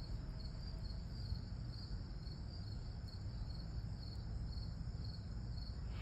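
Crickets chirping steadily, a faint even pulse of about two to three chirps a second, over a low background rumble.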